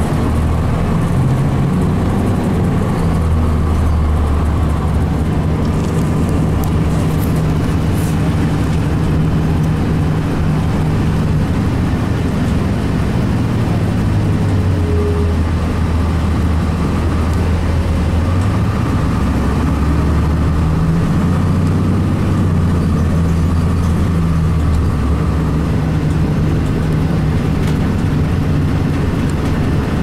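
Cummins ISC straight-six diesel of a 2002 Blue Bird CS transit bus, heard from inside the passenger cabin while the bus is driving. The engine note climbs, holds and drops several times as the bus accelerates and its Allison B400R automatic changes gear.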